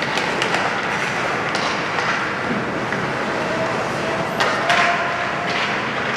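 Rink noise during a youth ice hockey game: a steady hum of the arena and spectators, broken by several sharp clacks of sticks and puck.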